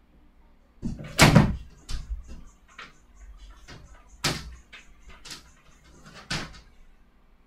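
A series of sharp knocks and thumps at irregular intervals, about eight in all. The loudest comes just over a second in and another strong one a little past four seconds, over a faint low hum.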